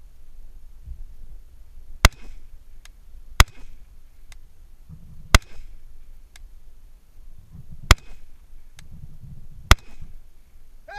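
Five rifle shots from a scoped AR-style rifle, fired singly and unevenly paced, one to two and a half seconds apart. Faint distant clicks follow the first three shots about a second later, typical of bullets striking steel plates a few hundred yards away.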